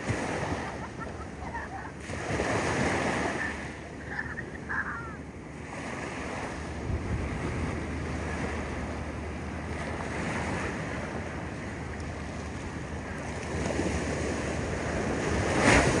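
Small ocean waves washing up the sand around a mussel-covered rock and swirling back, in surging swells with a louder wash near the end.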